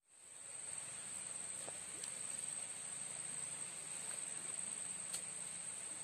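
Steady high-pitched insect trill, with a few faint clicks of dry sticks being laid together for a fire.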